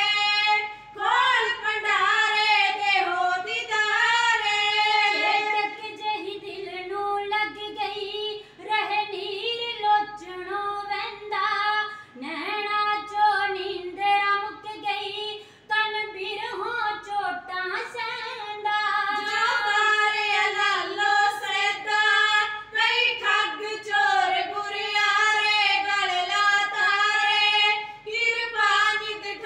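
Women's voices singing kavishri, the Punjabi Sikh devotional verse style, in high voices without instruments, with long held notes.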